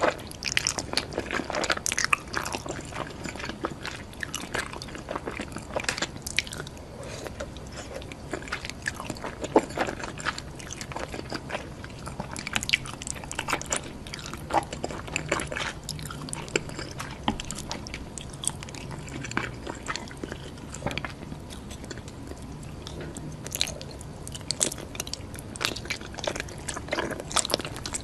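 Close-miked eating of Indomie noodles with cheese: irregular bites, crunches and chewing, with sharp crackles scattered through.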